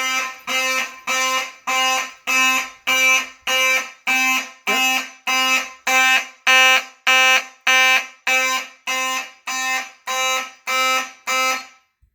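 Fire alarm horn sounding in a fast pulsing march-time pattern, about two buzzy blasts a second. It is the system's alarm signal after a heat detector was tripped by heating it with a hair dryer. It cuts off abruptly near the end.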